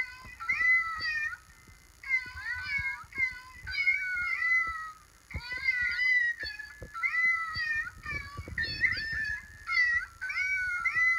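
Musical birthday card playing a song sung in recorded cat meows through its small speaker: a steady run of short pitched meows in repeating musical phrases.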